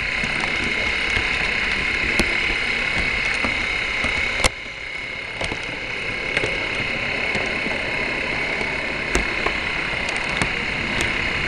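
Märklin model train running along the track: a steady mechanical hum with a handful of sharp clicks as the wheels run over the track. One louder click about four and a half seconds in is followed by a brief drop in the hum.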